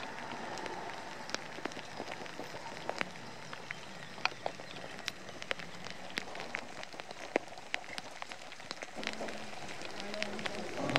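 Steady rain falling, with many sharp, scattered drop taps.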